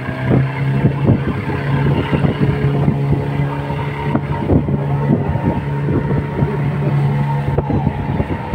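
Passenger boat's engine running steadily under way, a constant low drone, with gusts of wind buffeting the microphone.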